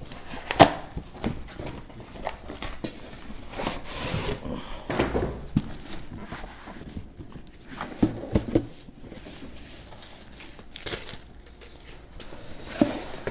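Cardboard shipping box being opened and a shoebox pulled out of it: rustling paper and cardboard with scattered knocks and scrapes, the sharpest knock about half a second in.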